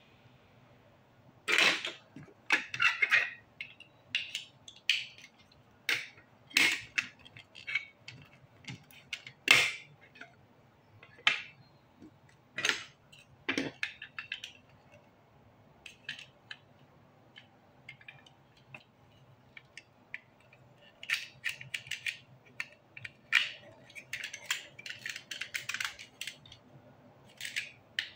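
Plastic Lego Duplo bricks clicking and clattering as hands rummage through a pile on a table and snap bricks together: scattered sharp clicks and knocks, with a busier run of clatter near the end.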